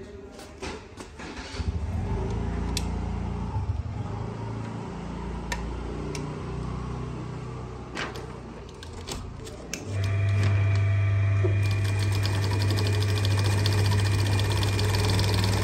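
Hilson 95T10 heavy-duty belt-driven sewing machine. It first runs in short, uneven spurts with a few clicks while the cloth is set under the presser foot. About ten seconds in it runs steadily at speed, stitching through cloth with a loud, even hum and fast, regular needle ticking.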